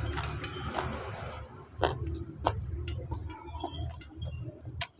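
Eating sounds: a few sharp clicks and clinks, as of utensils against a dish, over a low steady hum, the loudest click just before the end.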